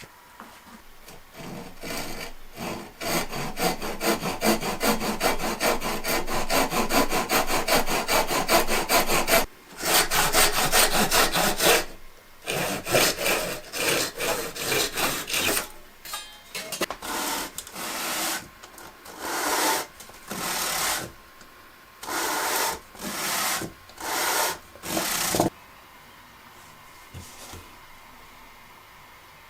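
A hand tool working wood in back-and-forth strokes: a long run of fast, continuous strokes, then slower strokes with short gaps between them, stopping near the end.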